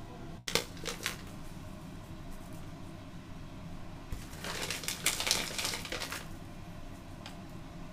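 A couple of short clicks, then a handheld spice grinder twisted over a plate of fish for about two seconds, a dry crackling grind.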